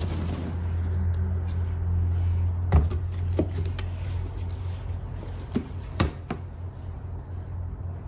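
A handful of sharp clicks and knocks as a Stihl chainsaw is handled, loudest about three seconds in and again about six seconds in, over a steady low hum.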